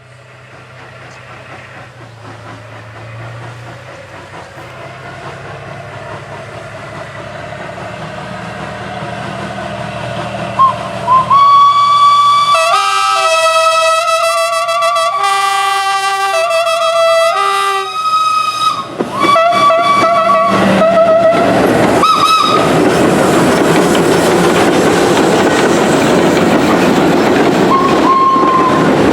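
A train approaching, its rolling noise growing steadily louder. About halfway through it sounds its whistle in a series of blasts that change pitch, then passes close by with a loud, steady rumble and clatter of wheels on rail.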